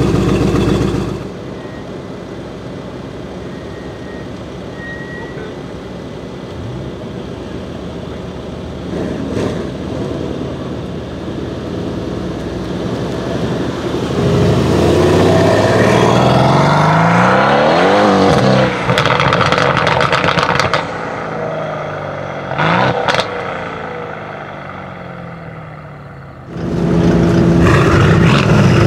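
Brabus 800 C63 S twin-turbo 4.0-litre V8 exhaust, heard in several cuts. It runs loud close behind the car at first. After a cut it is quieter, then builds as the car accelerates and drives past, its pitch rising and then falling through the middle. Near the end it is loud again close behind the car.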